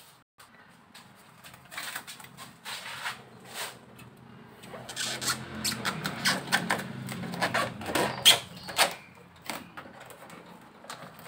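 Foil-faced heat insulation sheet crinkling and crackling as it is handled and pressed by hand onto the underside of a car bonnet, busiest and loudest in the middle, with a low hum underneath there.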